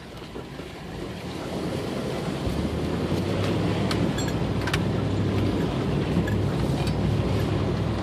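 A Jeep driving hard through a thigh-deep river, heard from inside the cab: water rushes and surges against the vehicle, growing louder over the first few seconds. The engine's low note comes up under load about two and a half seconds in, and a few sharp knocks fall in the middle.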